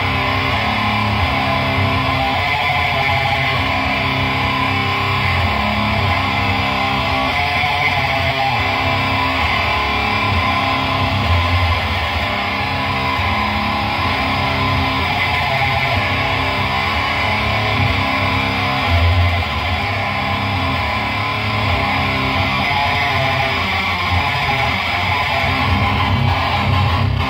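Electric guitar in C standard tuning played through a Lone Wolf Audio Caveman pedal with its gain fully up, into a Fender Deluxe Reverb amp: heavily distorted low riffs and held power chords, playing steadily throughout.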